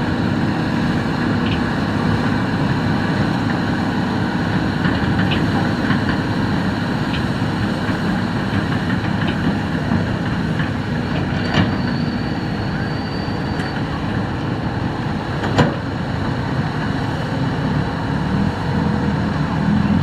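Hitachi hydraulic excavator's diesel engine running steadily as it works, with two sharp knocks near the middle and a brief high whine between them.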